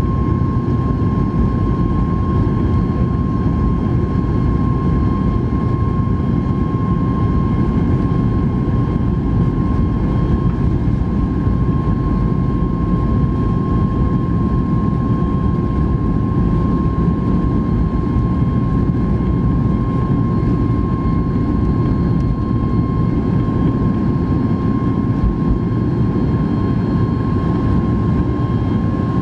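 Boeing 737 MAX 8's CFM LEAP-1B turbofan engines at takeoff thrust during the takeoff roll, heard inside the cabin just ahead of the wing: a loud, steady rushing noise with a steady high whine on top.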